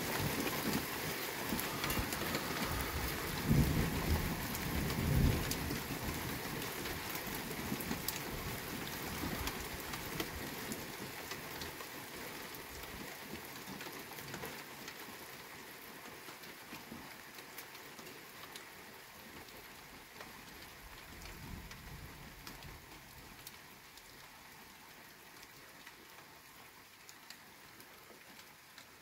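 Rain falling steadily on a wet street, with a low rumble of thunder about four seconds in and a fainter one later. The rain noise gradually dies down.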